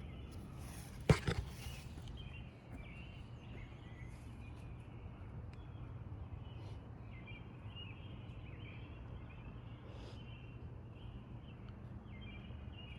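Songbirds singing, with many short repeated chirps over a steady low background noise; two sharp knocks about a second in.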